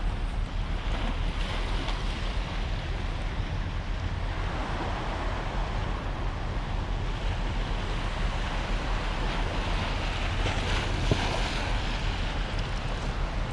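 Wind buffeting an action camera's microphone on a kayak at sea, a steady low rumble over the wash of the water.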